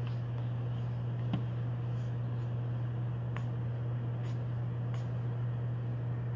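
Trading cards sliding against one another as a stack is thumbed through by hand, giving a few soft ticks and paper rubbing over a steady low hum.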